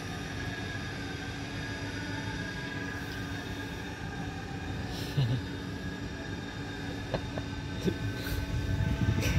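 Steady low background rumble with a constant hum, like a running machine or distant traffic. A few short clicks and knocks come in the second half, with louder bumps near the end.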